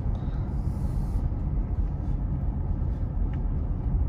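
Steady low rumble of a car's engine and tyres on pavement, heard from inside the cabin while driving slowly, with a faint click about three seconds in.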